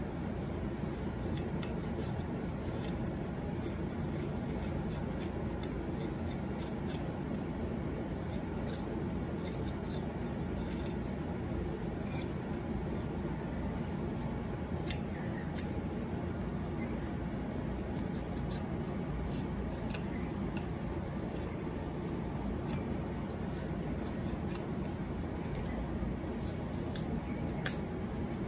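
ESEE 4 fixed-blade knife shaving pine, a run of small, faint scraping cuts as a spoon handle is whittled, over a steady low background noise. Two sharper clicks near the end.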